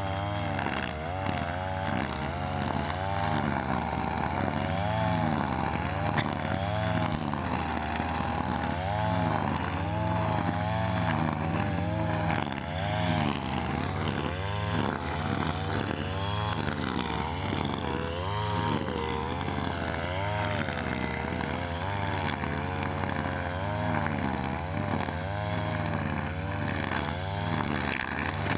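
Two-stroke brush cutter (grass trimmer) engine running continuously, its pitch wavering up and down every second or two as it cuts grass.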